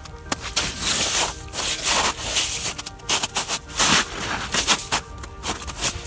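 Wet, melting snow and slushy ice crunching underfoot in irregular bursts, over background music.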